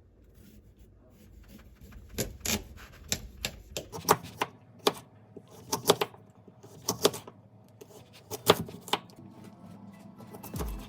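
Irregular sharp clicks and knocks, about a dozen over several seconds, some in quick pairs, over faint rustling.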